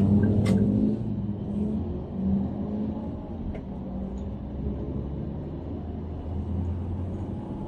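Engine and road noise heard from inside a moving car, louder in the first second with a rising and falling engine pitch, then settling into a steady low rumble as it drives on.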